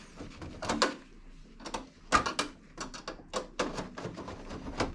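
Irregular clicks and knocks from the range hood's grill cover and screws being handled, with the last of four screws just removed and the cover ready to slide off.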